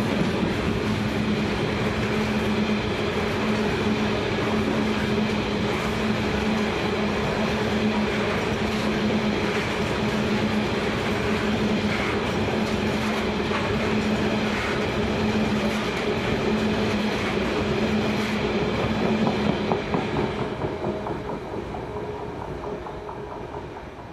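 A long ballast train's wagons rolling past on the rails, a steady clickety-clack of wheels over the rail joints with a constant hum. About twenty seconds in, the last wagon goes by and the sound fades away.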